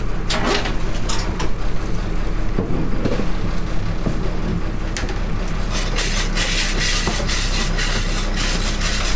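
Crab workboat's engine running steadily with a low hum, overlaid by scattered clicks and knocks of crabs and gear being handled at the cull box.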